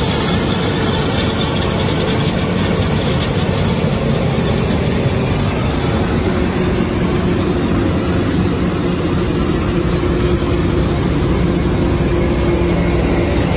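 Self-propelled silage harvester running, its Yuchai diesel engine and machinery giving a steady, loud drone.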